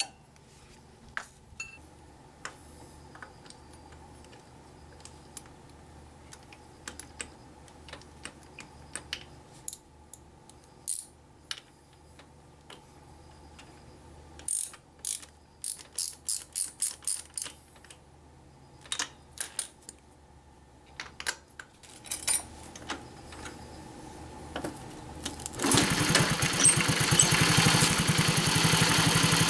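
Scattered metal tool clicks, including a quick run of ratchet-like clicks, then about three-quarters of the way in the Honda Super Cub 50's small single-cylinder four-stroke engine starts and runs at idle after a tappet (valve clearance) adjustment.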